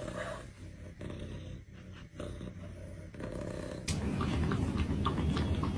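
A cat purring in a low rumble. From about four seconds in the rumble is louder, with quick small clicks from a kitten lapping milk from a bowl.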